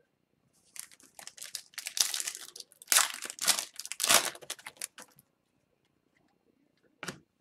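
Silver foil wrapper of an O-Pee-Chee Platinum hockey card pack crinkling as it is torn open and peeled off the cards. The crackling starts about a second in, is loudest in the middle and stops about five seconds in. A single short click comes near the end.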